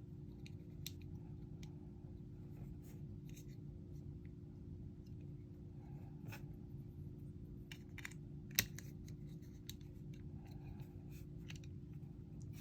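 Faint, scattered small plastic clicks and snaps from assembling a Gunpla plastic model kit, with one sharper click about eight and a half seconds in, over a steady low hum.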